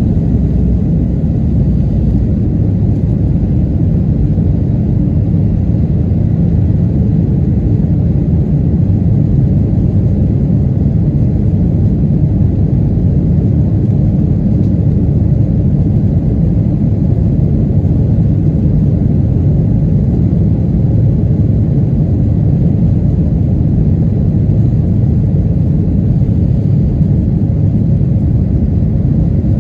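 Cabin noise inside a Boeing 737-800 in the climb after takeoff: a steady low rumble of its CFM56-7B turbofan engines and the airflow over the fuselage.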